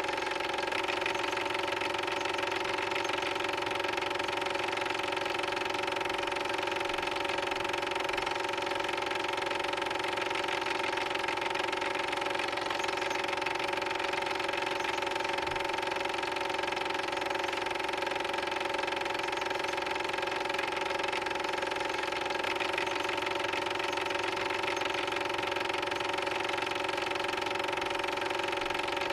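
Cine film projector running: a steady mechanical whirr with a fast, even clatter and a fixed hum, unchanging throughout.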